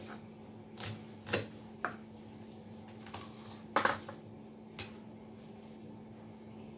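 About five scattered sharp taps and knocks of a kitchen knife and hands on a wooden cutting board and tabletop, the loudest a little past the middle.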